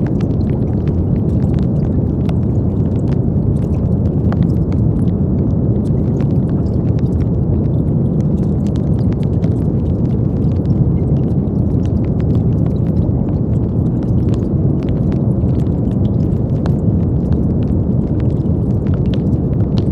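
Steady brown noise: a deep, even rumbling hiss that is strongest in the low end, with faint scattered crackles on top.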